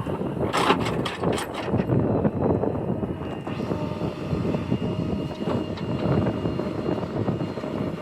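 JCB 3DX backhoe loader's diesel engine working under load, with a steady whine over the engine noise. Several knocks come in the first two seconds.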